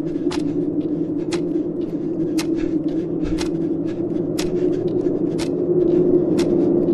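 Clock ticking, a sharp tick about once a second with fainter ticks between, over a steady low drone in the film's score.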